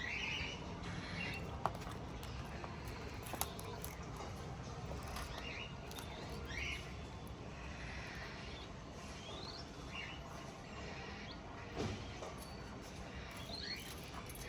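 Pet parrots (budgies and a cockatiel) chirping: short scattered chirps, some quickly rising, over a steady low background noise, with a few sharp clicks.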